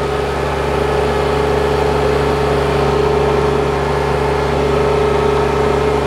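Ventrac compact tractor running steadily as it drives slowly forward, a low engine hum under a strong steady whine.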